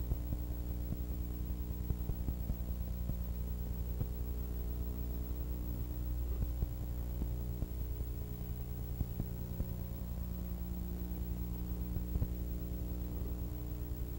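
Steady electrical mains hum with faint scattered clicks and crackle. It is the empty soundtrack of an old film-to-tape transfer, and no cars or crowd are heard.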